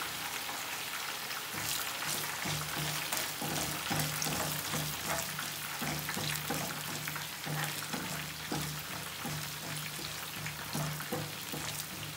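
Hot oil sizzling in a pan as a tempering of mustard seeds, cumin, urad dal, chana dal and black peppercorns fries, crackling with many small pops while it is stirred with a slotted spoon.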